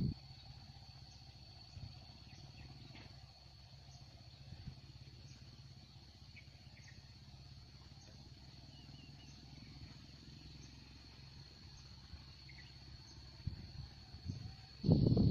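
Insects calling: a steady high-pitched drone, with a few faint short chirps over it. A louder low rumble starts abruptly near the end.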